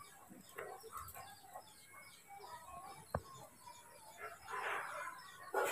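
Faint chickens clucking and other birds chirping, with a sharp click about three seconds in and a short harsh burst of noise just before the end.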